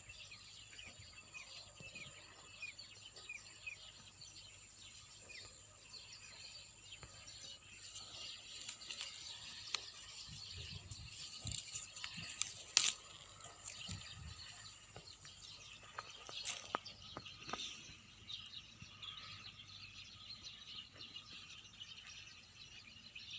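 Faint chirping of small birds, many short calls over a steady high-pitched whine, with a few sharp clicks about halfway through, the loudest just after the middle.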